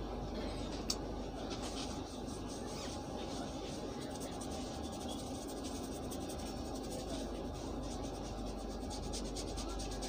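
Fingers rubbing and scratching through hair and over the scalp in a head massage, over a steady background hum of the train coach. A single sharp click about a second in.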